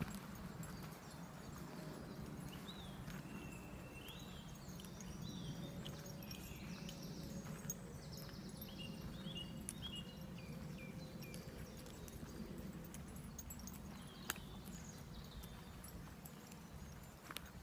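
Footsteps on a dirt path over a steady low rumble, with birds chirping in short rising and falling notes now and then through the first half.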